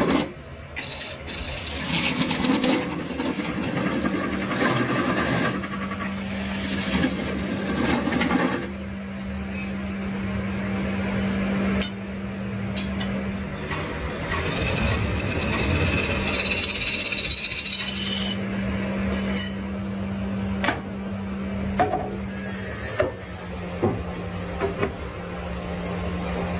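Woodworking sounds: scraping and rubbing on wood with scattered sharp taps and clicks, over a steady low motor hum that stops and starts several times.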